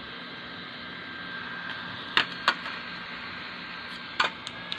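Small motor of a bladeless USB neck fan running: a steady airy hiss with a thin high whine. Three sharp plastic clicks from handling the fan, two close together about two seconds in and one near the end.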